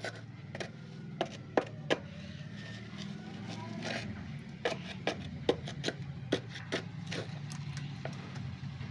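A hand tool cracking and scraping at a hard insect nest: irregular sharp cracks and scrapes, a dozen or so, over a steady low hum.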